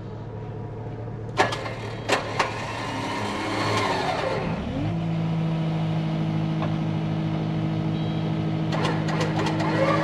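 Vehicle engine running steadily, then speeding up about five seconds in and holding a higher, steady pitch while the stuck skid steer is pulled out of the mud. A few sharp clicks sound near the start and again near the end.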